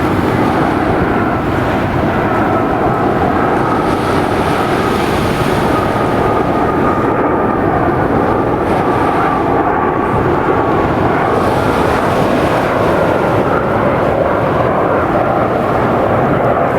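Landing airliner's engines running steadily, with a faint whine that slowly falls in pitch.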